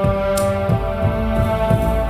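Background instrumental music with held, sustained tones over soft low pulses.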